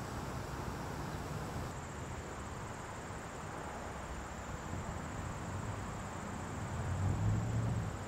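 Outdoor trackside ambience: a steady high, thin insect drone over a low rumble of wind or distant noise, which swells briefly near the end.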